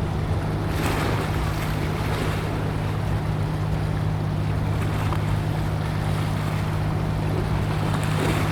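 Steady low drone of a passing ship's engine, with wind buffeting the microphone and water noise; a gust swells briefly about a second in.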